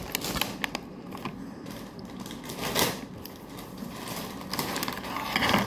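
Scattered light clicks and taps of handling at a table, with a short rustle about three seconds in and another near the end.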